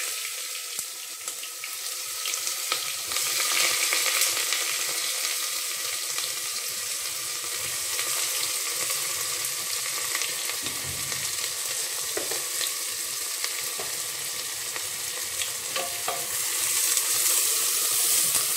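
Sliced onions sizzling in hot mustard oil in an aluminium pressure cooker, a steady frying hiss. It swells near the end as the onions are stirred.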